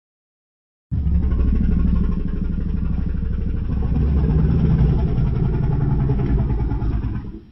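Godzilla-style monster growl sound effect: a deep, rattling growl that starts about a second in, runs for some six seconds and fades out near the end.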